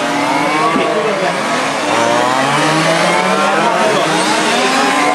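Several radio-controlled model racing cars' small engines running at once. Their pitches rise and fall as the cars accelerate and brake around the circuit, overlapping one another.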